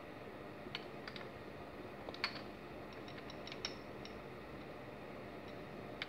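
Quiet room hiss with a faint low hum, broken by a handful of small, sharp clicks, the loudest about two seconds in.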